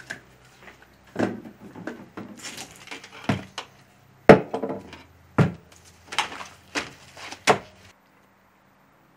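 Several sharp knocks and clatters with brief rustling between them: a spray can, seasoning shakers and a knife being set down and moved around plastic-wrapped beef roasts on a metal sheet pan on a wooden counter. The loudest knock comes about four seconds in, and the handling stops about a second before the end.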